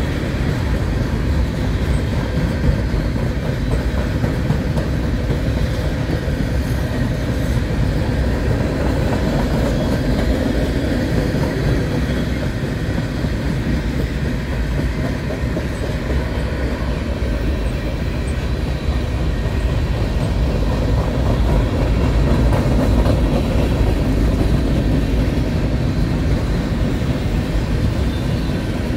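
Freight cars of a long mixed freight train, covered hoppers and scrap-loaded gondolas, rolling steadily past at close range, their steel wheels running on the rails. The sound is loud and even throughout.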